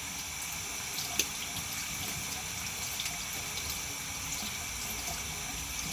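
Bathroom tap running steadily into a sink while a plastic container is rinsed out under it, with a few light clicks and knocks of the container, the sharpest about a second in.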